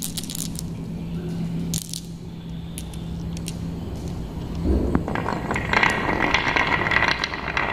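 Glass marbles clicking together a few times in a hand, then, about five seconds in, dropped into a carved wooden zigzag channel and rolling down it with a continuous rattle against the wooden curves.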